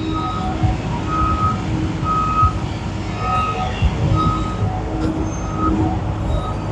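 Back-up alarm of a construction vehicle beeping about once a second as it reverses, over the low rumble of its engine.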